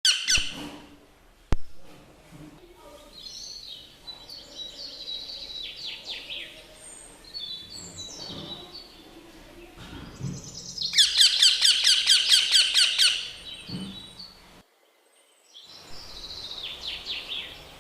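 Baby green parrot calling in quick runs of high chirps, the loudest a long rapid burst about eleven seconds in. A single sharp click comes about a second and a half in, and the calls stop for about a second near the end before starting again.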